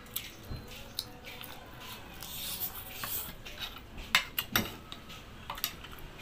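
Close-up eating sounds: a man chewing chicken feet adobo, with a metal spoon clicking and scraping on a plate. The sharpest, loudest clicks come in a cluster a little after four seconds in.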